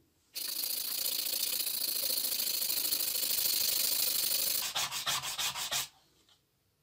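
Small wooden piece hand-sanded on sandpaper wrapped around a block: a continuous scratchy scrubbing for about four seconds, then a quick run of short separate strokes before it stops.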